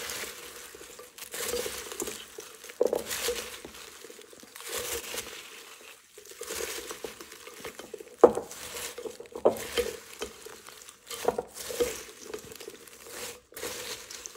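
Dry pretzels, Chex and Cheerios rustling and crunching against each other as a chocolate-coated snack mix is stirred with a silicone spatula in a glass bowl. Now and then there is a sharp knock with a short ring, several times.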